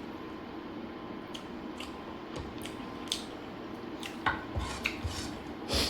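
Someone eating the last piece of chicken biryani: scattered soft clicks and smacks of chewing and light clinks against a plate, the loudest cluster near the end.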